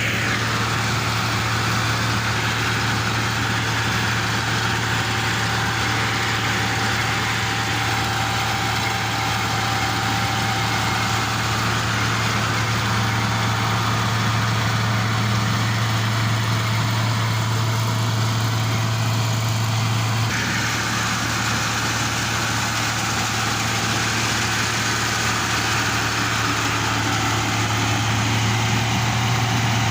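Kubota rice combine harvester's diesel engine running steadily with a low hum and machinery noise. The sound shifts abruptly about two-thirds of the way through, then runs on steadily.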